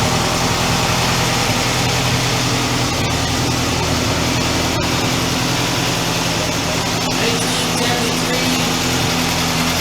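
Engine idling steadily, with an even low drone and a constant hiss over it.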